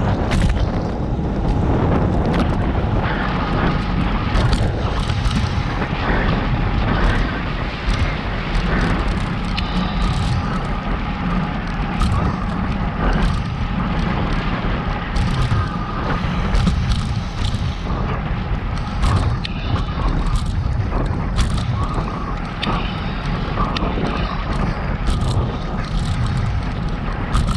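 Wind buffeting the microphone of a camera on a moving bicycle, a steady low rumble with scattered clicks and rattles from bumps in the road and a faint steady whine underneath.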